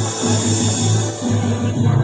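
Loud music with a pulsing bass line, the accompaniment of a choir competition song.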